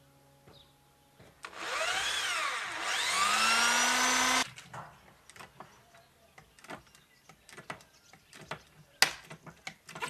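Electric drill working into wooden slats on a steel barrel top: the motor whirs for about three seconds, its pitch sagging and recovering under load, then climbing and holding before it stops abruptly. Scattered clicks and knocks follow, with one sharp snap near the end.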